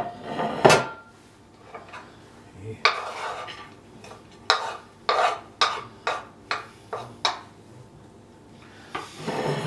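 A glass plate clatters down on the counter. Then a knife and a wooden cutting board scrape and tap against it in about seven short, sharp strokes as chopped cilantro is pushed off the board onto the plate.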